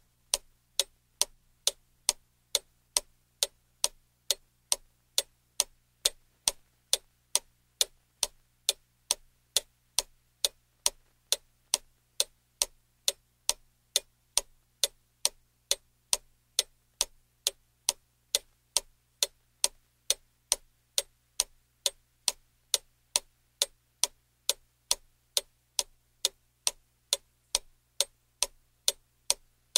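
Ticking-clock timer sound, steady at about two ticks a second, counting off the seconds of a countdown.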